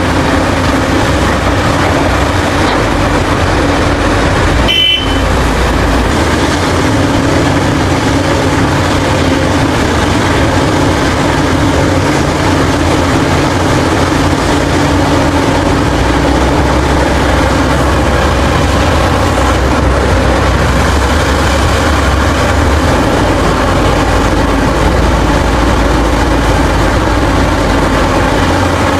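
Caterpillar 6015B hydraulic mining excavator's diesel engine running steadily under load as it digs and loads, a deep continuous rumble with a brief dropout about five seconds in.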